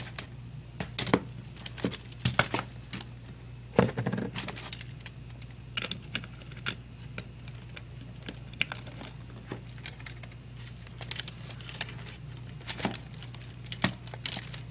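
Lego Technic axle and rubber tire being handled and fitted together: irregular plastic clicks and rattles, a few sharper ones, over a low steady hum.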